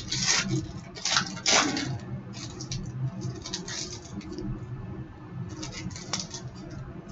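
Trading-card pack being opened and its cards handled: the wrapper crinkles and the cards rustle and slide in a string of short bursts, busiest in the first two seconds and again near the end.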